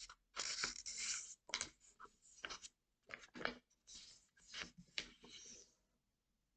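A sheet of paper rustling and rubbing as it is folded by hand, in short irregular bursts.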